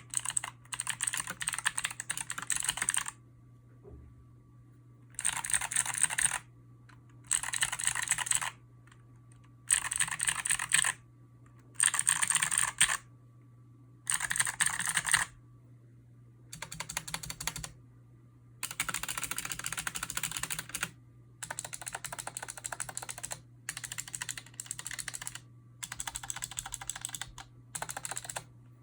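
Typing on a HyperX Alloy Origins mechanical keyboard with clicky HyperX Blue switches and stock ABS keycaps: runs of rapid clicking lasting a second or two, broken by short pauses. The runs in the second half are somewhat softer.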